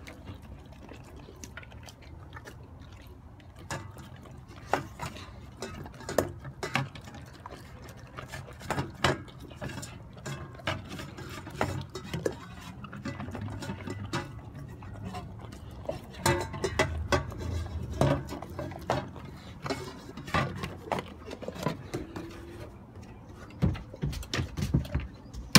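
Bernese Mountain Dog eating raw meat from a bowl: wet chewing and licking with irregular clicks and knocks.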